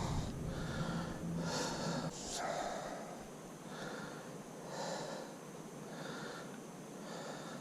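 A person breathing close to the microphone: soft, noisy breaths about once a second.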